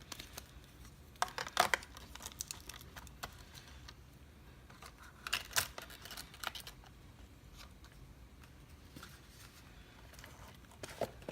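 Hands handling a lock and its key: scattered small clicks and rustles in short clusters, about a second in, around five and a half seconds, and again near the end.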